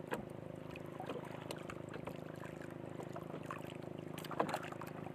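A faint, steady motor drone, with small scattered clicks and ticks from fingers working a baited fishing hook and line close to the microphone.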